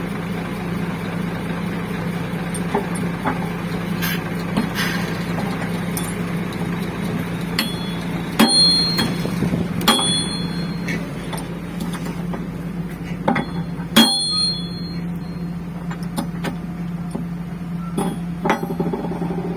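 Excavator engine idling steadily, with a few sharp metal-on-metal hammer strikes that ring out, three of them loud, and some lighter knocks between: the sound of bucket teeth being knocked on or off.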